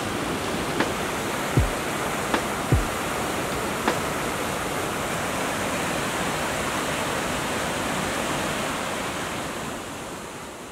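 Rain-swollen creek rushing over rock ledges: a steady roar of fast water. In the first four seconds a light music beat of falling-pitch thumps and clicks sits over it, and the water sound fades away near the end.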